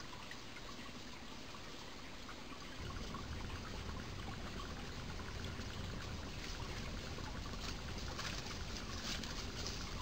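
Mountain stream running, a steady rush of water that grows a little louder and deeper about three seconds in.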